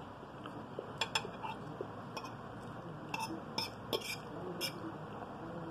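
Metal fork clinking and scraping against a plate as food is cut and picked up: two sharp clinks about a second in, then a cluster of clinks between three and five seconds in.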